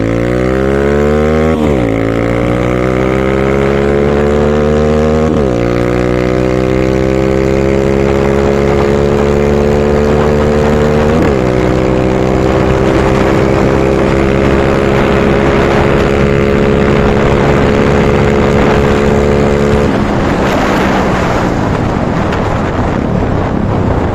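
KRY 200 dirt bike engine pulling hard through the gears, geared with a 14-tooth front and 40-tooth rear sprocket. The engine note climbs and drops at three upshifts, about 2, 5 and 11 seconds in, then holds steady at speed. About 20 seconds in the throttle closes and the engine note fades into a rushing noise.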